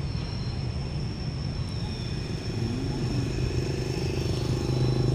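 A motor vehicle's engine running nearby, its low hum growing louder in the second half, over a thin steady high whine.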